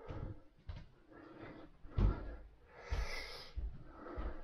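Footsteps on a wooden floor and handling knocks: a string of dull thumps spaced irregularly, with a short rustle about three seconds in.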